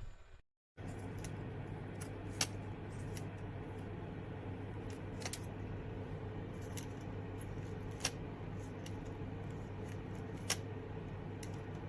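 Small battery-powered handheld fan running steadily with a low motor hum, with a dozen or so light clicks from handling. The sound cuts out for a moment about half a second in.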